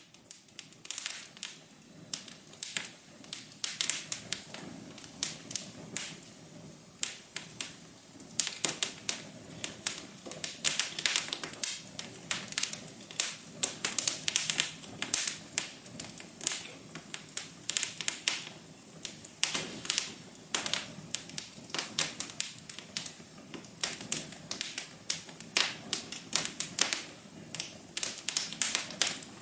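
Wood fire in a fireplace crackling: irregular sharp pops and snaps, several a second, over a soft steady hum.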